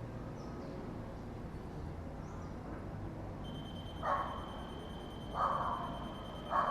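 A dog barking three times, about a second and a quarter apart, over a low steady hum from the empty city. A steady high-pitched tone starts just before the first bark and keeps going.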